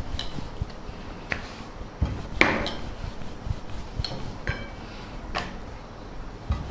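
Rolling pin rolling and knocking against a wooden board as a stuffed paratha is rolled out, with irregular knocks every second or so. Light metallic clinks of bangles ring briefly among the knocks.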